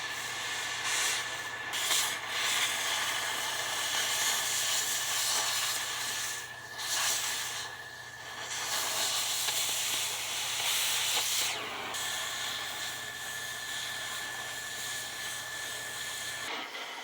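Oxy-acetylene cutting torch hissing steadily as it cuts through old truck-frame metal, dipping briefly twice near the middle.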